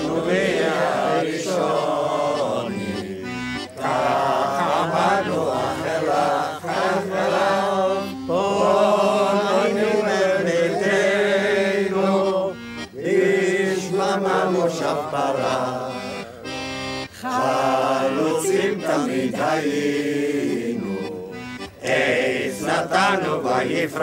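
A group of elderly men and women singing a Hebrew song together in unison, over instrumental accompaniment.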